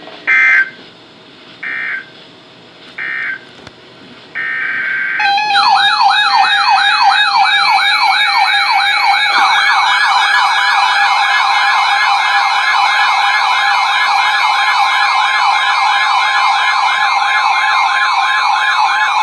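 Emergency Alert System tones: three short squawks of digital data tones followed by a longer burst, then a loud warbling alert that sweeps rapidly up and down over a steady two-tone attention signal. The data bursts mark the end of one warning and the start of the next.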